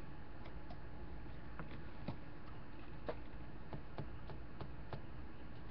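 About ten faint, irregular clicks, the sound of a computer mouse, over a steady low background hiss.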